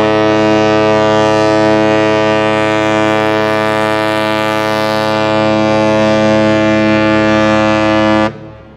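Ship's horn sounding one long, loud, steady blast that cuts off abruptly near the end.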